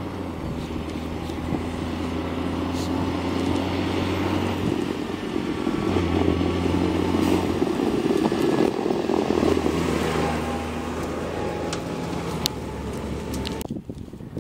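Case IH Puma 210 tractor's six-cylinder diesel engine running steadily as it pulls a digestate tanker past. It grows louder as it approaches, is loudest a little past halfway, then fades, and the sound drops away sharply near the end.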